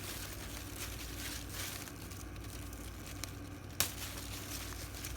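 Bean vines and leaves rustling as string beans are picked by hand, with one sharp click near the four-second mark.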